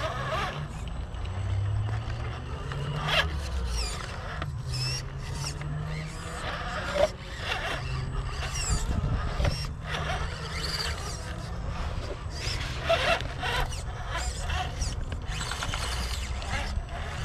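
Radio-controlled rock crawler's electric motor and gears whining in short rises and falls as it is throttled over rocks, with scattered clicks and knocks of tyres and chassis on stone, one sharper knock about halfway through.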